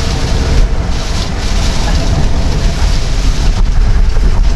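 Steady road noise inside a moving taxi's cabin on a rain-wet road: the low rumble of the car running, with the hiss of tyres on the wet surface.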